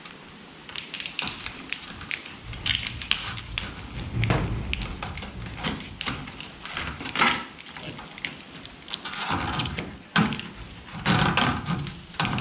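Corrugated plastic split conduit and cable rustling and scraping as they are worked by hand through a rubber grommet in an aluminium boat console, with irregular clicks and knocks.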